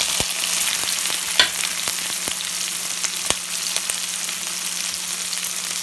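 Chopped onions sizzling in hot mustard oil in a steel pan, a steady frying hiss with a few sharp clicks scattered through it.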